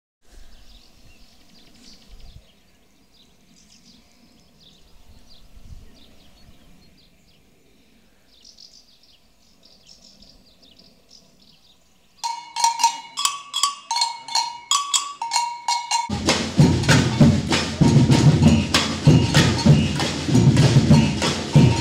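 Children's percussion band playing. Sharp, pitched wood-block clicks in a quick, uneven pattern start about twelve seconds in. Drums, including big bass drums and snares, come in loudly about four seconds later.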